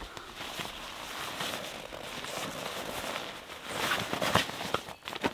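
Fabric rustling as gear is stuffed by hand into a cloth stuff sack, with louder, sharper rustles about four seconds in.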